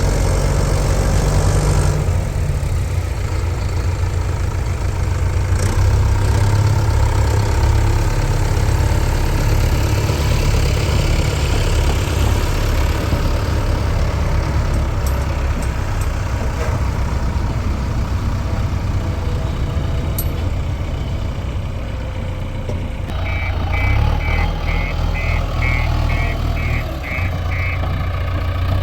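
Heavy diesel engines of a JCB 3DX backhoe loader and a Mahindra tractor running steadily while the backhoe loads mud. Near the end comes a quick run of about ten high beeps, like a vehicle's reversing alarm.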